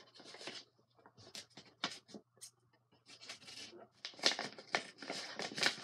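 Scissors cutting open a brown paper mailing bag: a string of short irregular snips and paper crinkles, busier and louder near the end.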